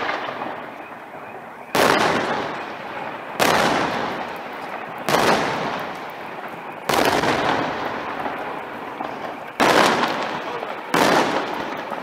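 Aerial firework shells bursting overhead: six loud bangs, one every second and a half to two seconds, each trailing off in a long fading echo.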